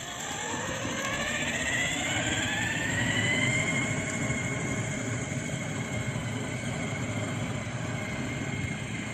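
Electric drive motor of a remote-control cooler whining as it climbs a steep incline on high speed, loaded with ice and soda cans. The whine rises in pitch over the first three or four seconds, then holds steady over a low rumble of the wheels.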